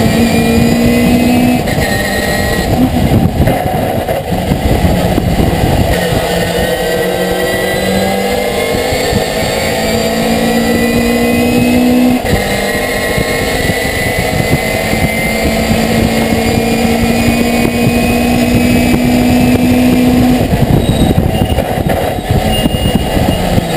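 Racing pickup truck's engine at full throttle, heard from inside the cab, its pitch climbing slowly through long pulls and dropping abruptly about halfway through and again near the end.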